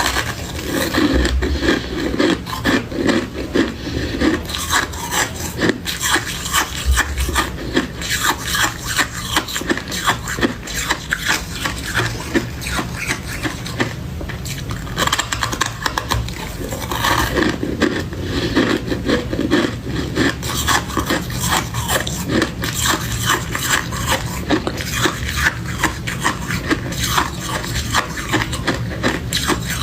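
Powdery freezer frost being crunched and scraped, a dense, unbroken run of quick crisp crackles.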